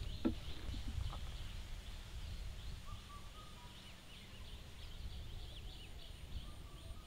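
Open-field ambience: many faint, quick chirps of distant small birds, with a few short whistled notes, over a low rumble of wind on the microphone. A couple of soft taps in the first second or so.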